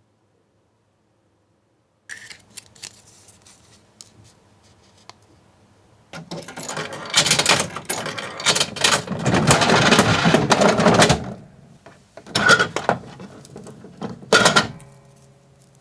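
Gashapon capsule-toy machine worked by hand: a few light clicks at the coin slot, then the dial turned in a long run of loud ratcheting clicks and rattles, then two sharp knocks as a chocolate egg drops into the outlet and is taken out.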